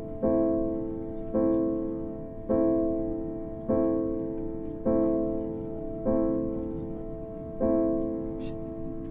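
Background piano music: the same chord struck about once a second, each strike left to ring and fade before the next.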